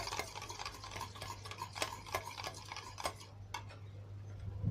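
A utensil stirring a thick mix of dish soap and hand lotion in a container, making quick clicking scrapes about four a second that stop about three seconds in.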